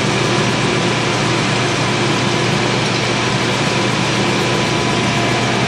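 Metal lathe running while a left-hand turning tool is hand-fed in to face the end of the spinning workpiece: a steady cutting and machine noise, a little louder as the tool comes in.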